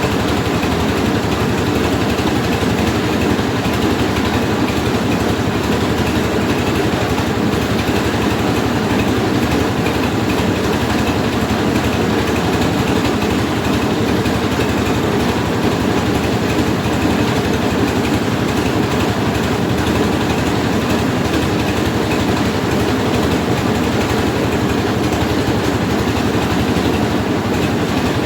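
Mobile rice milling machine running steadily under its engine, a loud, continuous mechanical din.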